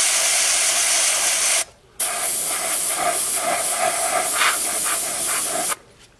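Airbrush spraying, a steady hiss of air and paint, broken once briefly between about one and a half and two seconds in and stopping shortly before the end.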